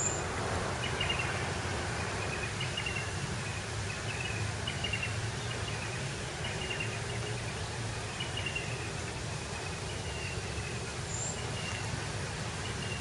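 Outdoor ambience: a steady background hiss with a short, slightly falling chirp repeating about once a second.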